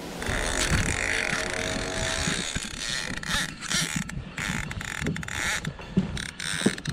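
Mechanical whirring, then irregular ratchet-like clicking from a fishing reel as the vertical rod is worked over the water.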